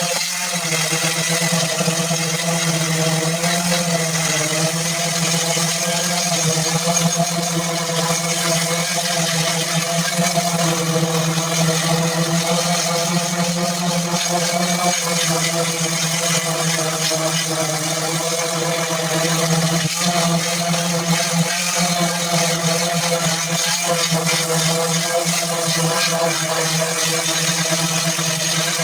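Power sander running steadily as it sands a car body for primer.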